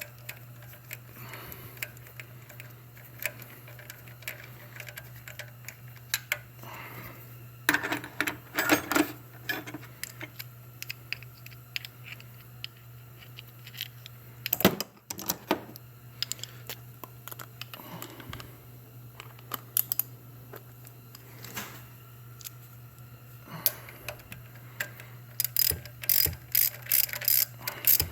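Hand ratchet with a 10 mm socket clicking in short bursts as it turns a bolt, with a quick run of clicks near the end, over a steady low hum.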